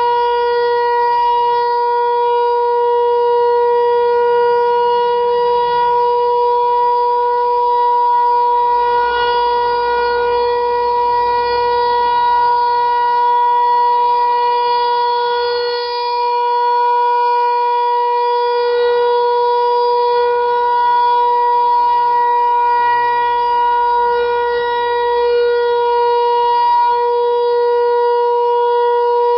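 Federal Signal Equinox electronic outdoor warning siren sounding a loud, steady tone that holds one pitch throughout.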